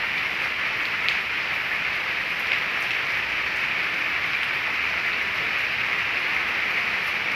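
Steady rain falling on wet brick paving and leafy shrubs: a constant even hiss, with an occasional sharper drop tick.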